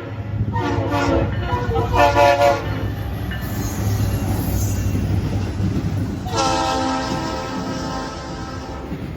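Freight locomotive air horn sounding two short blasts, then a long blast starting about six seconds in, over the low rumble of the passing diesel locomotives.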